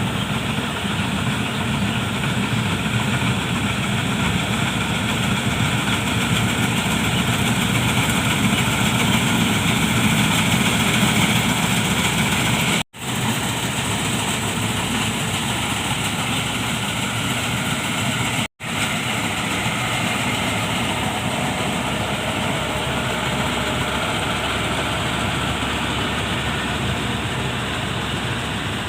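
Heavy diesel farm machinery running steadily under load, a dense mechanical drone with no change in pace. The sound cuts out abruptly twice for a split second, about 13 and 18.5 seconds in.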